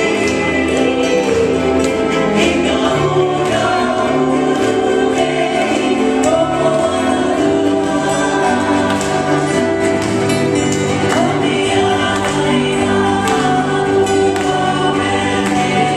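Hawaiian band playing live: singing over ukulele and a bass line.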